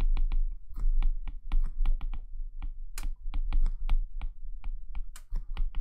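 Stylus tip tapping and clicking on a tablet's glass screen while writing by hand: irregular sharp clicks, about four a second.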